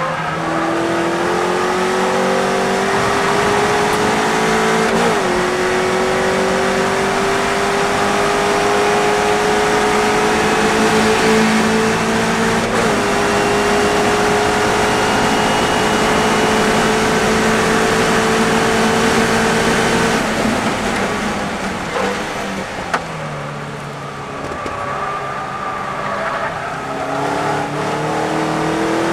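Westfield sports racing car's engine heard from the open cockpit, accelerating hard with two quick upshifts, each a short drop in pitch before it climbs again. About twenty seconds in it comes off the throttle for braking and downshifts, then accelerates again near the end, with wind rushing past throughout.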